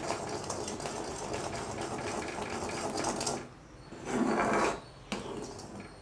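Spoon stirring and scraping around a pan of thick tamarind and jaggery chutney, a fast rhythmic scraping that stops about three seconds in. About a second later comes a short, louder burst of stirring, then a sharp knock near the end.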